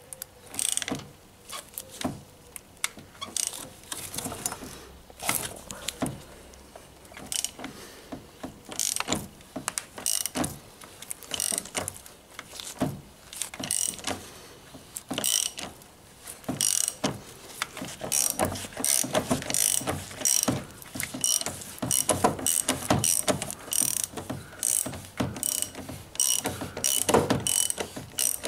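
Ratchet wrench clicking in short, irregular runs as it swings back and forth, turning a large 32 mm socket to unscrew the oil filter housing cap.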